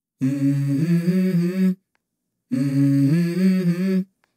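Song intro: a low hummed melody, the same short stepping phrase sung twice, each time about a second and a half, with a clean silence between.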